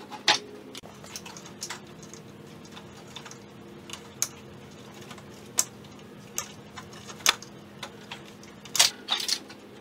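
Scattered light plastic clicks and taps of hands unplugging an electrical connector and working the wire clips behind a Jeep's grille support, loudest in a cluster near the end, over a steady low hum.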